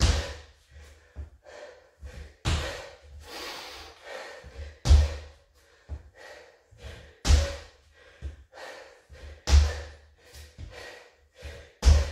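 Trainers landing on a hard floor in reverse lunge hops: a heavy thud about every two and a half seconds, six in all, with hard breathing between.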